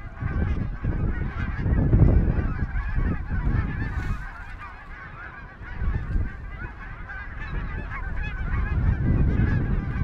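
A large flock of geese honking in flight, many birds calling over one another in a continuous chorus as the flock comes in to land. A heavy low rumble on the microphone runs underneath.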